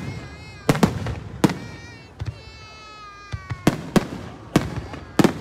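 Aerial fireworks shells bursting in a rapid, irregular series of sharp bangs, about seven in all, with a lull in the middle. In the lull a high drawn-out tone slides slowly downward in pitch.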